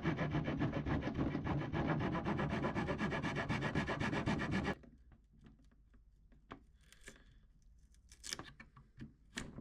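Steady rasping of a tool working wood, which stops abruptly about halfway through. A few faint knocks and handling sounds follow.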